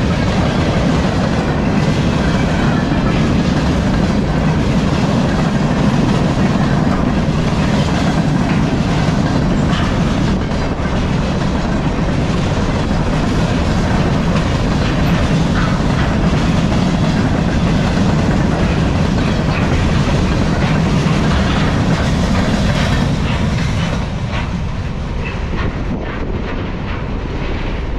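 Freight cars of a long CSX freight train rolling slowly past on steel wheels: a steady low rumble with irregular clicks and clacks from the wheels over the rail joints. The sound drops off near the end as the train moves away.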